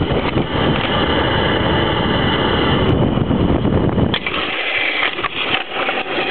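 Wind rushing over the microphone and a zip-line trolley running along the cable at speed. About four seconds in, the deep rumble drops away, leaving a lighter hiss.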